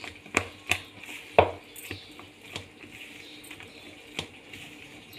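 Hand folding thick cake batter in a ceramic bowl: quiet squishing broken by a handful of sharp clicks from the bangles on the wrist knocking together and against the bowl, the loudest about a second and a half in.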